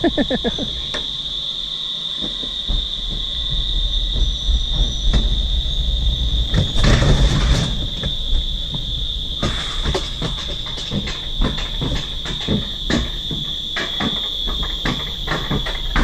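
Bobsled-style coaster sled running down its tubular steel rail track, wheels rumbling low with repeated irregular clacks and knocks, a louder rushing stretch about seven seconds in and quicker clacking near the end. Over it, a steady high-pitched insect drone from the rainforest.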